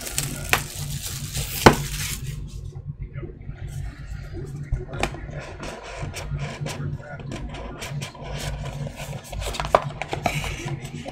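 Hands handling and opening a cardboard trading-card box: scattered taps, scrapes and clicks of the box, with a sharper knock about a second and a half in and another near the end. A low steady hum runs underneath.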